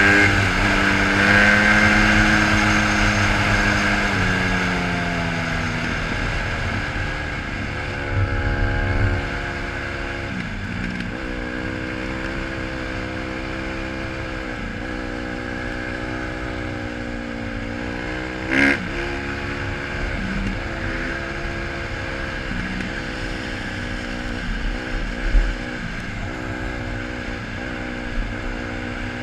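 Honda CRF150R dirt bike's four-stroke single-cylinder engine running under the rider's throttle. Its pitch falls over the first few seconds as the bike slows, then rises and falls repeatedly with throttle changes, over a steady low wind rumble. One sharp knock comes about two-thirds of the way through.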